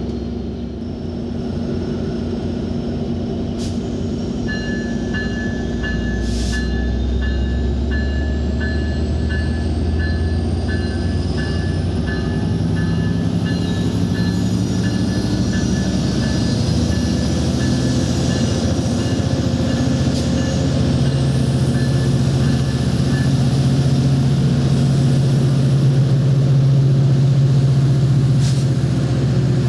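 Train passing, a steady low rumble that slowly grows louder. From about four seconds in until near the last quarter there is a rapid repeated ding, about one and a half a second.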